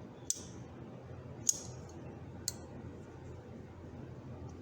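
Small pair of steel pliers being worked open and shut, the jaws giving three sharp metallic clicks, the middle one the loudest. The pivot has just been freed of rust.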